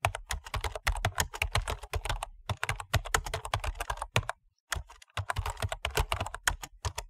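Laptop keyboard typing: quick runs of keystrokes with brief pauses, about two and a half seconds in and again around four and a half to five seconds in.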